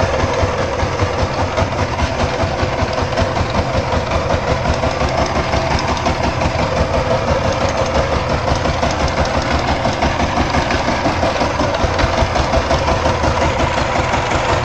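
Single-cylinder diesel engine of a two-wheeled power tiller running steadily, with an even pulsing beat, while it pulls a loaded trolley.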